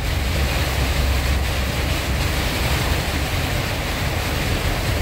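Heavy rainstorm heard from inside a moving car: a loud, steady wash of rain on the roof and windshield and tyre hiss on the flooded road, over a deep constant rumble.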